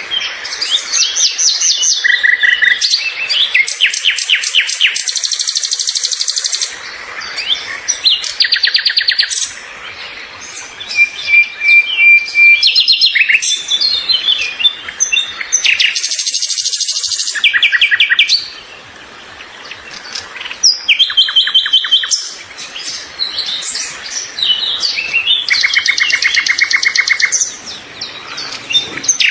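Songbirds chirping and singing, many calls overlapping: rapid trills, quick repeated notes and short whistles, with a few brief lulls.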